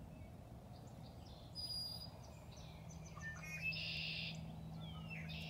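Wild birds calling and singing: a scatter of short chirps, trills and whistles, with a low steady hum joining about halfway through.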